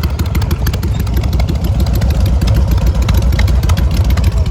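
Motorcycle engine running steadily, loud, with a rapid, even exhaust beat.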